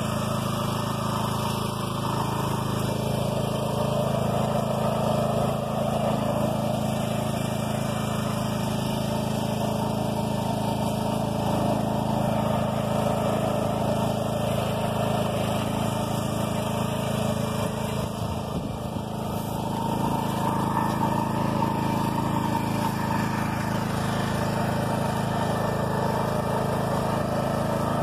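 Engine of a BCS two-wheel walk-behind tractor running steadily under load as it pulls a heavy roller crimper over standing wheat, dipping briefly about two-thirds of the way through.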